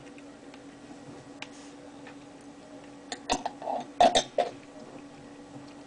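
Mouth sounds from a man tasting chilli paste: a cluster of short smacks and clicks with brief throaty noises, between about three and four and a half seconds in, over a faint steady hum.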